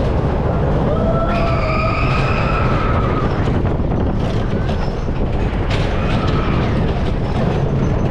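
Wooden scenic railway roller coaster train running on its track: a steady low rumble with clattering. A high squeal sets in about a second in and lasts around two seconds, and a shorter squeal comes near six seconds.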